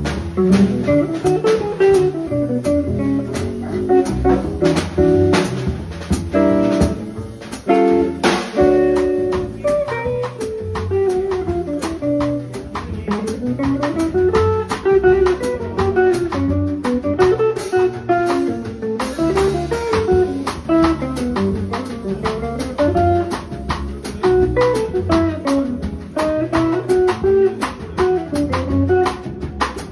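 A quartet playing live acoustic music: a guitar melody runs up and down in quick notes over low bass notes, with a drum kit keeping time.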